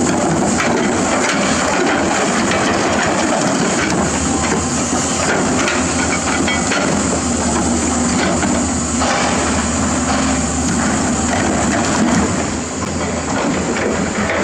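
Doosan DX225LCA hydraulic excavator at work in a quarry: its diesel engine runs steadily under load while the bucket digs and scrapes through earth and broken rock, with stones clattering.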